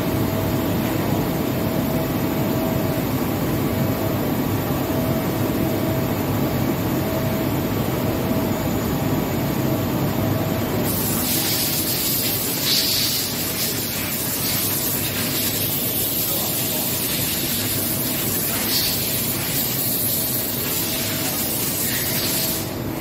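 DMG Mori NTX2000 turn-mill machining center cutting a workpiece under flood coolant: steady machine noise with coolant spraying and splashing and a faint steady whine. About 11 seconds in, a louder high hiss of spray joins.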